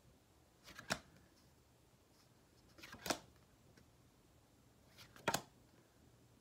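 Stiff paper flash cards being flipped over in a hand-held stack, a short swish and snap three times, about two seconds apart.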